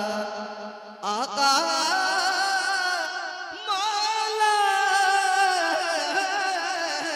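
A man singing a naat unaccompanied, drawing out long ornamented notes whose pitch wavers and slides. He breaks off briefly about a second in, then takes up a new long phrase.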